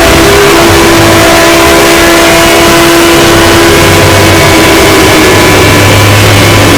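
Fan-made emergency alert (EAS) alarm: very loud, heavily distorted noise with steady held tones underneath, one low tone fading out about halfway through.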